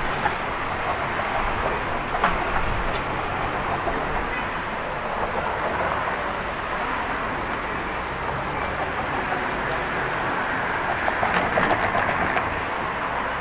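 Steady city street noise of traffic and passers-by, with a brief burst of clatter near the end.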